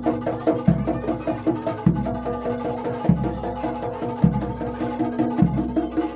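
Jaranan Dor ensemble music: a deep jidor bass drum struck about every 1.2 seconds under a fast, repeating pattern of pitched percussion notes.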